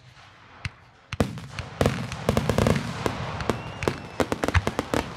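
Fireworks finale: aerial shells bursting in a rapid barrage. Two separate booms are followed, from about a second in, by a dense run of sharp bangs over continuous crackling.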